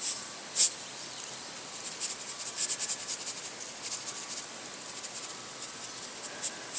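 Plastic salt shaker rattling as salt is shaken over sliced tomatoes, in quick groups of short, sharp shakes with a louder stroke about half a second in and another at the end.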